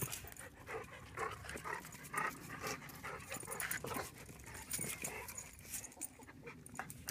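Brittany puppy and a large white dog play-wrestling: quick, irregular dog panting with scattered clicks and scuffles of paws on tile.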